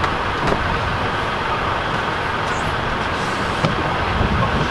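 Engine of the heavy equipment lifting the rooftop air conditioner running steadily, with a couple of light knocks as the boxed unit is handled on the bus roof.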